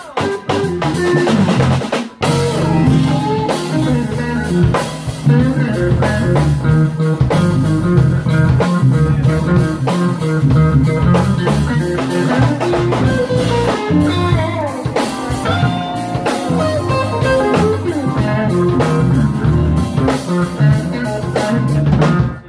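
Live blues band playing an instrumental passage: electric guitar lead over keyboard and drum kit.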